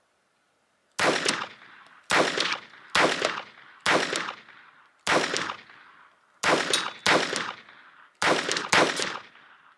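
Phoenix Arms HP22A .22 LR semi-automatic pistol firing Armscor rounds: about nine shots at an uneven pace of roughly one a second, some in quick pairs. Each sharp crack rings on for most of a second.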